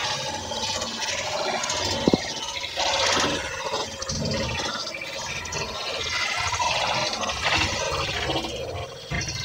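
Gas burner of a two-burner Eagle gas stove burning, its flame giving a rushing hiss that rises and falls, with one sharp click about two seconds in.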